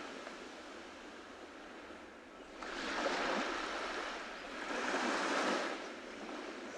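Ocean waves washing onto a beach. After a low wash, one wave breaks about two and a half seconds in and a second about two seconds later, each swelling and then fading.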